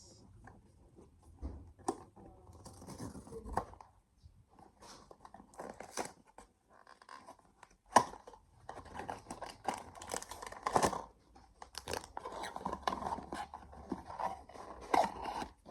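Blind-box packaging being opened by hand: irregular tearing, scratching and crinkling, with a sharp click about eight seconds in.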